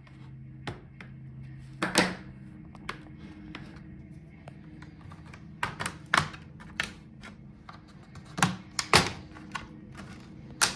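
Plastic snap-fit clips of a laptop's bottom case popping loose as the case is pried off with a plastic pry tool: a series of sharp, irregular clicks and snaps, the loudest about two seconds in and about nine seconds in.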